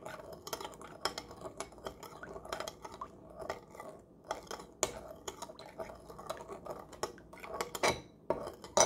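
A metal spoon stirring a liquid sauce in a bowl, clinking and scraping against the sides in quick, irregular strokes, a little louder near the end.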